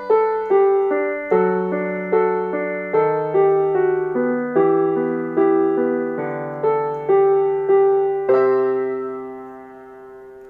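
Piano playing the closing bars of a song's accompaniment, notes and chords struck about twice a second, ending on a held chord that slowly fades out.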